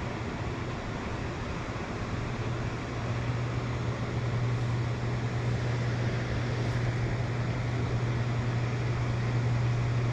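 A steady low hum under a constant wash of water and wind noise, growing a little louder after about three seconds.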